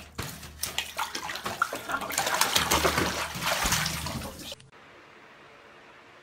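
Bathwater splashing and sloshing in a filled bathtub, with many small splashes and knocks. It cuts off abruptly about four and a half seconds in, leaving only faint room noise.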